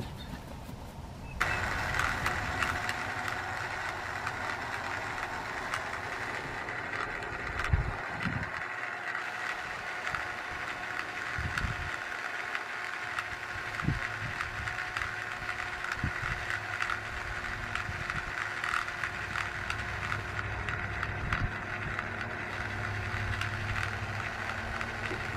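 A battery-powered toy bubble machine's small electric motor switches on about a second and a half in and runs with a steady whirring whine, with a few dull low thumps.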